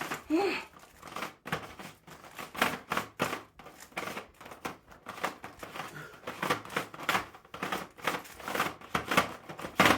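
Rubik's cubes being turned fast during a speed solve: rapid, irregular clicking and clacking of plastic layers.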